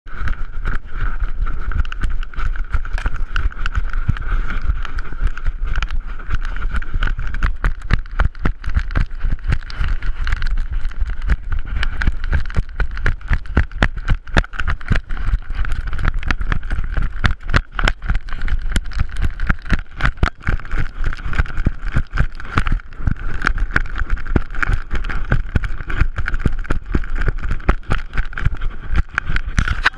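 Handling noise from a GoPro Hero 3 Black strapped to a running puppy's harness: a dense, irregular run of knocks and rubbing as the camera and its cardboard mount bounce against the dog, over a steady low rumble.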